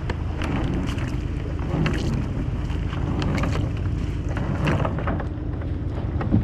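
Wind rumbling on the microphone on a kayak at sea, with irregular small splashes and knocks of water against the hull and gear.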